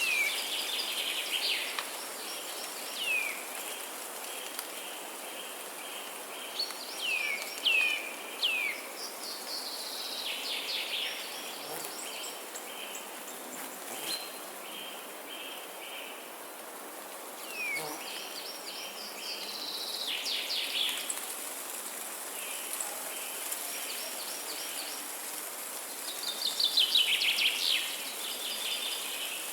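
Rainforest ambience: a steady hiss of wind behind many birds calling, with sharp downward-sweeping whistles and fast trills, and a pulsing insect-like chirp repeating underneath. The loudest burst is a dense run of trills near the end.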